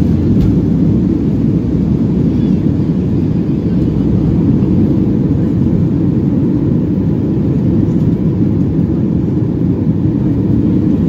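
Loud, steady rumble of an airliner's engines and airflow, heard from inside the passenger cabin.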